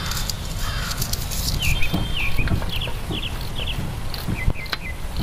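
Small birds chirping in short high notes, mostly in pairs, over a steady low rumble, with a couple of sharp clicks from a knife slicing an onion.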